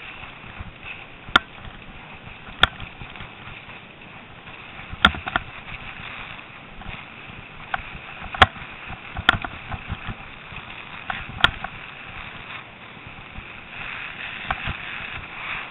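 Mountain bike running downhill over snow: a steady hiss of tyres and air, broken every second or few by sharp knocks and rattles as the bike jolts over bumps, the loudest about eight and a half seconds in.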